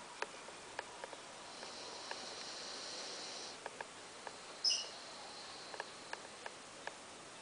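A sleeping Great Dane breathing softly: a faint hiss of breath lasting about two seconds, with scattered small clicks. A brief high squeak about halfway through is the loudest sound.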